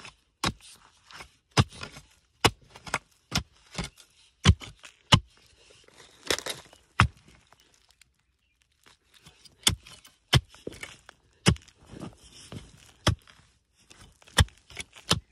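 Narrow-bladed hand hoe chopping into dry, stony soil and roots: repeated sharp strikes, about one or two a second, with a brief pause about halfway through.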